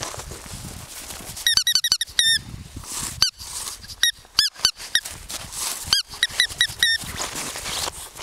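Cavalier King Charles spaniels giving short, high-pitched yips in several quick bursts, each yip a brief rising-and-falling squeak, over soft crunching in snow.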